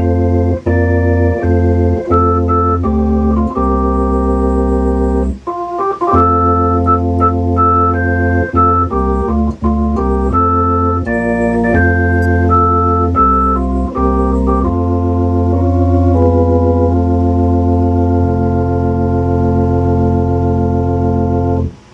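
Hammond RT-3 tonewheel organ playing a tune: held chords on the manuals over low bass-pedal notes, changing every second or so. The music stops suddenly near the end.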